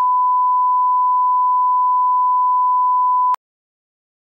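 A steady 1 kHz line-up reference tone, the test tone that goes with colour bars at the head of a broadcast tape. It cuts off suddenly a little over three seconds in.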